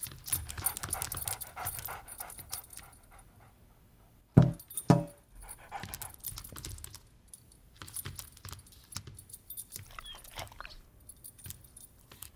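A dog's collar tags jingling as it moves about, with the dog panting, and two short, loud barks about four and a half seconds in.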